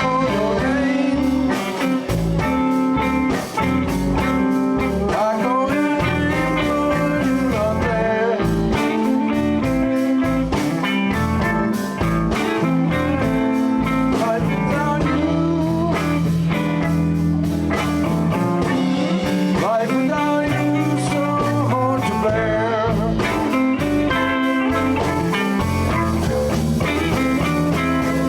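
Live blues band playing: electric guitar, bass and drums, with a lead line of bent notes over a steady beat.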